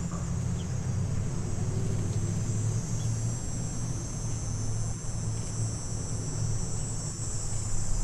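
A steady high-pitched insect chorus, like crickets, over a low steady hum.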